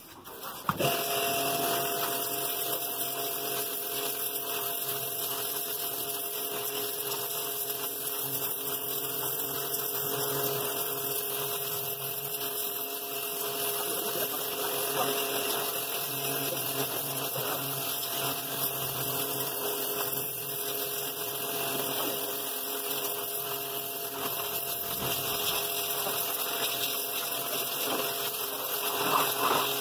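Pressure washer running steadily. Its pump motor hums, and its water jet sprays and scours the fiberglass hull bottom and the rotten wooden floor stringers of a gutted boat. It starts about a second in.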